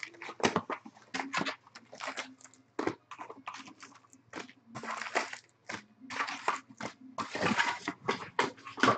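Clear plastic shrink-wrap being torn and crinkled off a box of trading card packs, in irregular rustling, crackling bursts.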